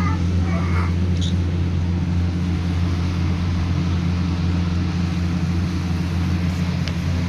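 A steady low hum at an even level, with a brief faint high chirp about a second in.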